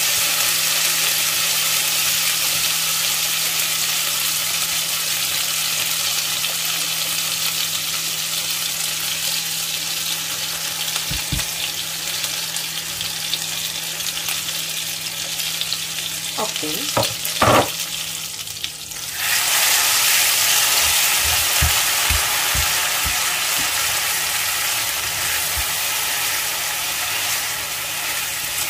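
Blended spice paste of chilies, garlic and shallots sizzling in hot oil as it is sautéed, with a spoon stirring and now and then knocking against the pan. The sizzle dips briefly about two-thirds of the way through, then comes back louder.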